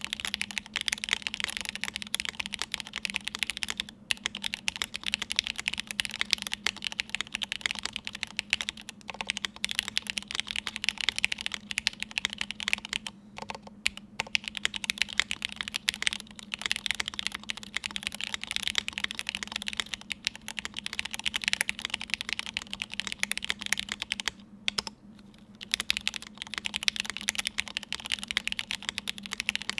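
Continuous typing on a Cake60 mechanical keyboard with lubed Gateron X r1 linear switches (55 g long springs, Krytox 205g0, TX films), a half FR4 plate and GMK doubleshot keycaps. There are short pauses about 13 and 25 seconds in.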